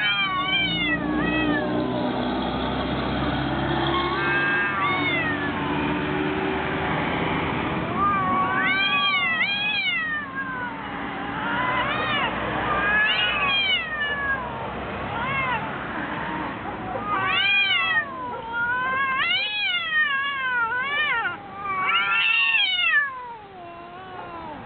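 Two domestic cats caterwauling at each other in a fight: long, wavering yowls that rise and fall in pitch, one after another and sometimes overlapping, with lower drawn-out growling in the first few seconds. The yowling stops shortly before the end.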